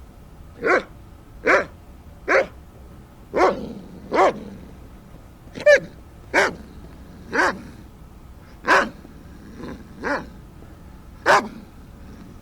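A dog barking: about a dozen short single barks, spaced roughly a second apart.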